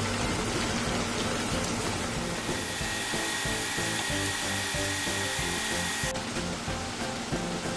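Battered chicken pieces sizzling steadily as they deep-fry in hot oil, the high hiss dropping suddenly about six seconds in. Background music plays along with it.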